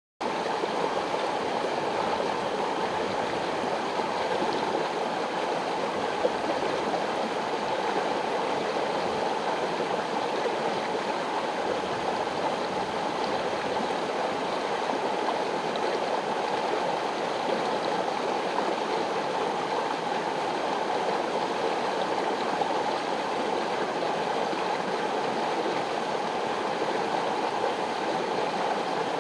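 Mountain river rushing and gurgling over rocks, a steady, unbroken flow of water.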